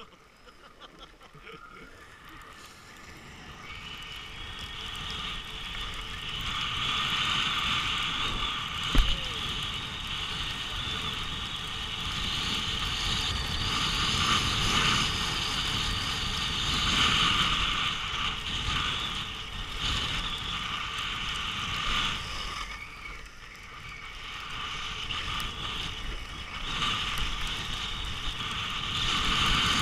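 Skis hissing and scraping over groomed snow, with wind rushing over the microphone, growing louder over the first several seconds as the skier picks up speed and dipping briefly about two-thirds of the way in. A single sharp knock about nine seconds in is the loudest moment.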